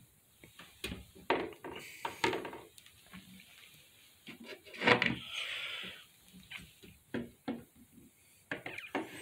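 Scattered knocks, taps and rustles from the phone being handled and moved about, the loudest about five seconds in.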